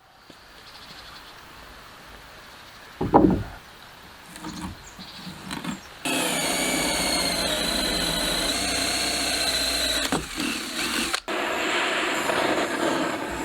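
Building sounds: a heavy thump about three seconds in and a few lighter knocks, then a power tool running steadily with a whine from about halfway. It breaks off sharply near the end and a noisier steady sound follows.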